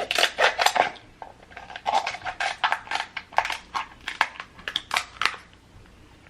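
King crab legs being eaten right at the microphone: a quick, uneven run of crisp clicks and crunches from the shell and the mouth, dying away about five seconds in.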